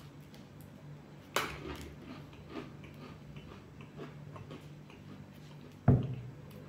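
A person biting into and chewing an Oreo sandwich cookie: one crisp crunch about a second and a half in, then a few faint chewing crunches. Near the end there is a short, louder low sound.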